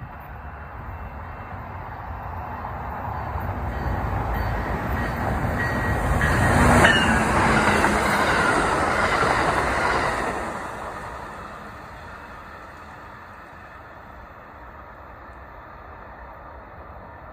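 Amtrak Illinois Zephyr passenger train passing at speed on steel rail. The rumble of wheels on rail builds for about six seconds and peaks sharply as the locomotive goes by, with a high whine that drops in pitch. The rush of the passing cars then fades out over the next few seconds to a low steady background.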